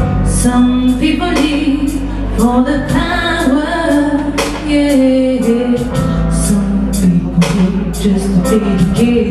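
Pop-soul song with singing over a backing track with a steady beat: vocal runs that bend up and down over a sustained low bass.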